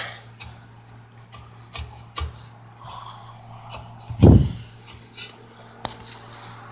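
Hands rubbing and clicking against the sheet-metal housing and fan cage of an electric unit heater while searching inside it for what the fan blade strikes. There is one louder low thump about four seconds in, over a steady low hum.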